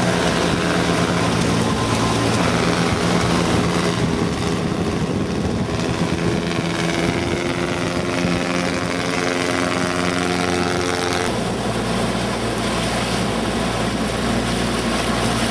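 An engine running steadily, with a constant low hum. Its pitch and tone shift about eleven seconds in.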